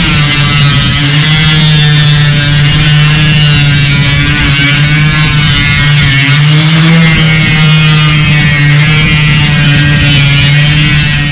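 Angle grinder running steadily with its disc cutting into a metal roofing panel: a loud, steady whine over a harsh grinding hiss.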